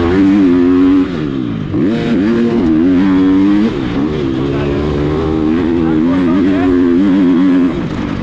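Motocross bike's engine under hard throttle, its pitch rising and falling as the rider accelerates and shifts. The engine note drops off briefly about a second in, again just past the middle, and near the end.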